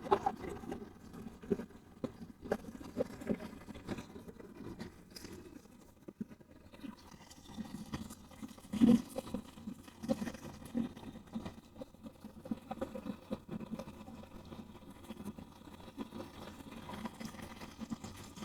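Faint, irregular crackling and soft knocks from a bonfire of damp sticks being lit, with a louder knock about nine seconds in.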